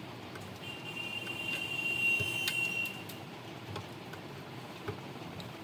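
Screwdriver working at screws inside a cash counting machine, giving a few light clicks. From about half a second in, a steady high-pitched tone sounds for about two and a half seconds.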